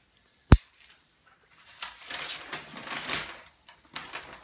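Steel butterfly-handled Japanese scissors (kéo bướm) snapping shut once with a sharp metallic click about half a second in. Then a couple of seconds of rustling, clattering handling noise.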